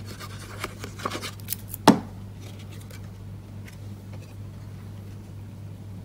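Card paper and a liquid glue bottle handled on a craft table: light scratchy rustling, then a single sharp knock about two seconds in. After that only a faint low hum.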